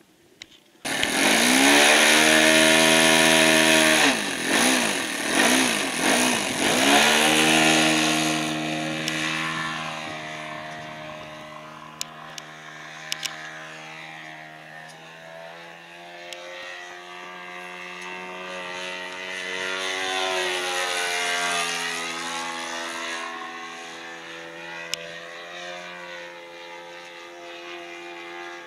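Radio-controlled model's motor and propeller, opened up suddenly about a second in and running loud for several seconds. It then fades and swells as the model moves away and passes by again, its pitch bending up and down with each pass.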